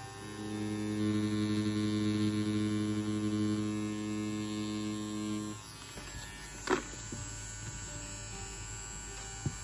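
Tattoo machine running with a steady electric hum as the cartridge needle draws a line on practice fake skin; it cuts off about five and a half seconds in. About a second later there is one sharp click, and a smaller one near the end.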